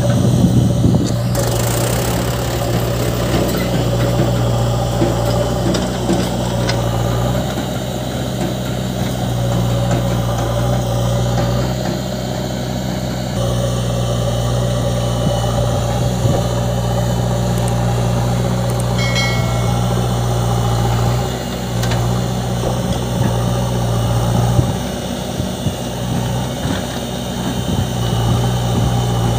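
JCB 3DX backhoe loader's diesel engine running steadily under working load, its note dipping and changing a few times as the loader and backhoe are worked. A brief high tone sounds about two-thirds of the way through.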